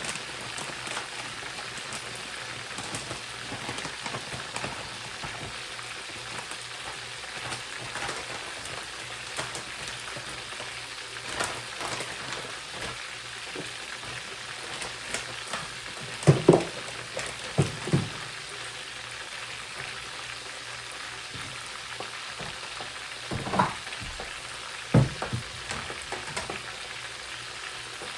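Food sizzling in hot oil in a pan, a steady crackling hiss, with a few louder knocks about halfway through and again near the end.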